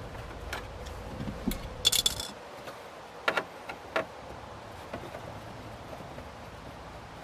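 Phillips screwdriver working the screws out of a Jeep Wrangler's plastic dash bezel: scattered clicks and knocks, with a brief metallic jingle about two seconds in. A low hum cuts off just after the jingle.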